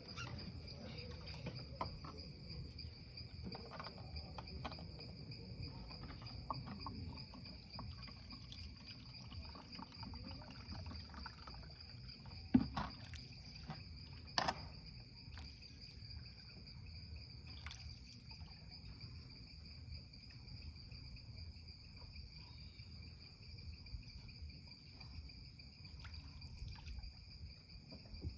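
Steady, high-pitched insect chorus trilling without a break over a low rumble, with two sharp knocks about halfway through.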